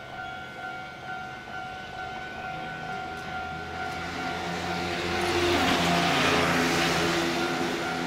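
Japanese railway level-crossing warning alarm ringing steadily. A passing vehicle's rumble and hiss swells up about four seconds in, is loudest around six to seven seconds, then eases off.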